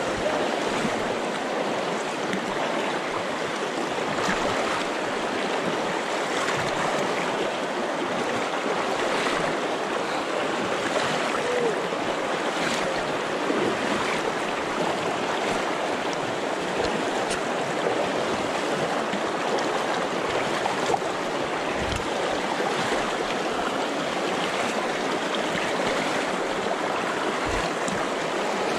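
Steady rush of a shallow river's water running over rocks, with two brief low thumps in the last third.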